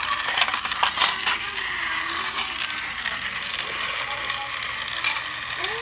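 Thomas & Friends mining-yard toy train set in motion: its plastic gears and mechanism click and rattle steadily, with many small sharp clicks.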